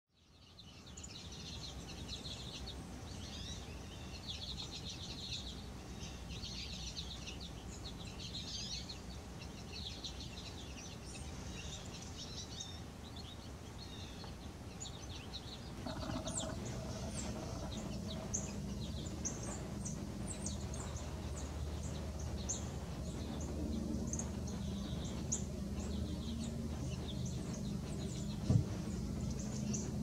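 A flock of American goldfinches twittering, a dense chatter of high chirps that thins about halfway through to scattered short calls over a low steady rumble. There is a single dull knock near the end.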